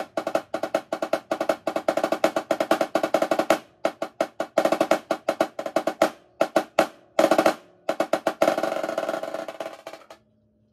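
Marching snare drum played solo: fast runs of stick strokes broken by short pauses and a few single accented hits, then a roll that fades away and stops about ten seconds in.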